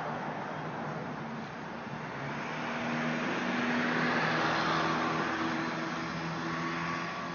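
Steady noise of a passing road vehicle that swells to a peak about midway and then eases off, with a low steady hum joining it.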